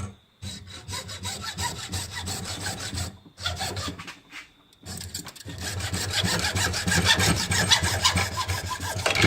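Hand saw cutting through a 1/2-inch PVC pipe in quick back-and-forth strokes, with a brief pause about three seconds in before the sawing resumes, harder.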